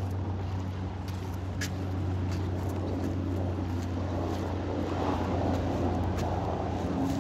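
A steady low engine drone, with a few faint clicks over it.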